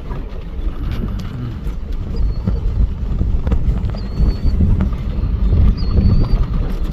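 Wind buffeting the microphone in uneven low rumbling gusts, with scattered knocks and three short, high warbling chirps about two seconds apart.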